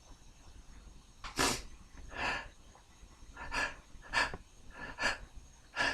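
A man's short, breathy gasping inhalations, about seven of them after the first second, as a tickle in his nose builds toward a sneeze.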